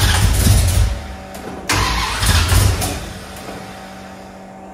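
Freshly built 440 big-block V8 with a tunnel ram being fired up for the first time: it bursts into loud running twice, about a second each, then settles to a steady, quieter hum.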